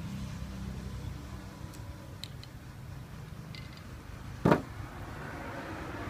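Low, steady background rumble with a few faint ticks, broken by one sharp knock about four and a half seconds in.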